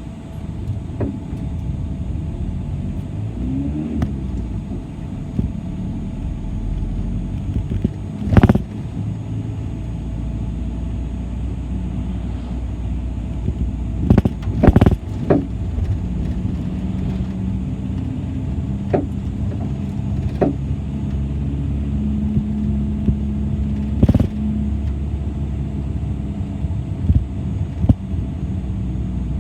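City bus riding along: a steady engine and road rumble heard from inside the cabin, its engine note shifting as the bus changes speed, with a few sharp knocks and rattles from the body, three of them louder than the rest.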